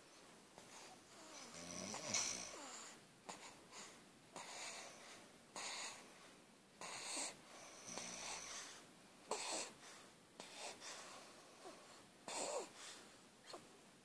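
Sleep breathing and snoring: quick, wheezy breaths about every second, with two deeper snores about two seconds in and again near eight seconds.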